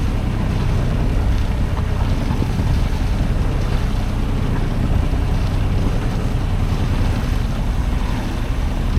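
Steady wind noise on the microphone aboard a sailboat under way, with a constant low rumble underneath.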